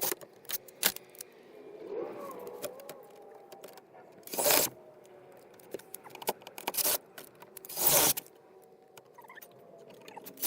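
Handling noises as something is fitted in place: a scatter of short rattles and scrapes, the loudest two about four and a half and eight seconds in.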